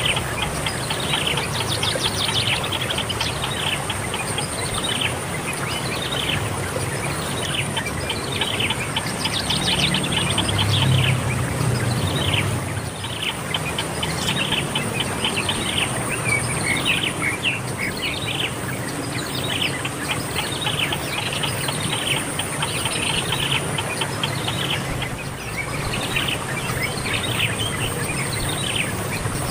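Birds chirping continuously, many quick downward-sliding chirps one after another, over a steady high-pitched insect trill and a low background hum.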